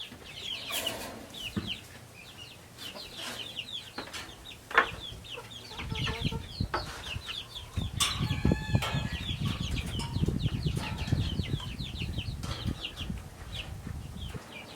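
Chickens in the barn peeping steadily in short, falling chirps, with a fuller call about eight seconds in. Scattered knocks and, from about six seconds in, rough rustling and handling noise sound under the chirps.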